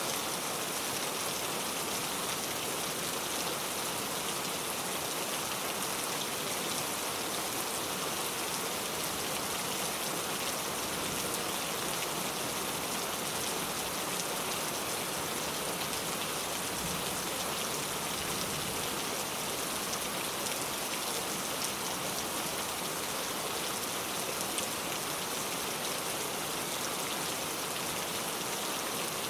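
Steady rain falling, a dense, even hiss of drops on surfaces.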